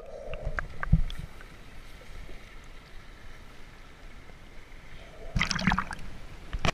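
Muffled underwater water noise around a submerged camera, with a low thump about a second in, then a splash about five and a half seconds in as the camera breaks the surface.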